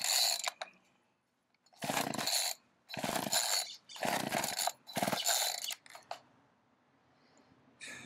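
Electric chainsaw run in short bursts, the trigger squeezed and let go about five times, each spin-up lasting under a second with silence between. The bursts stop about six seconds in.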